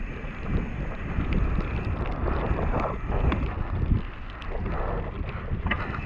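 Wind rushing over an action camera's microphone during a fast mountain-bike descent, with the tyres rumbling on a wet gravel trail and scattered knocks and rattles from the bike over rough ground.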